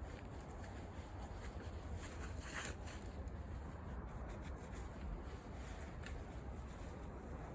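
Ratchet of a Strongway come-along hand winch clicking irregularly as its handle is worked to drag a log, over a low rumble of wind on the microphone.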